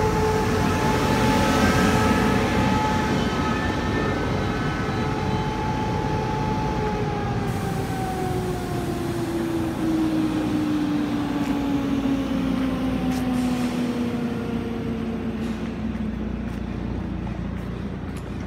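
Taiwan Railway E1000 push-pull express train running along the platform, with the traction motors' whine falling steadily in pitch as it slows over a continuous rumble of wheels. A few light clicks come near the end.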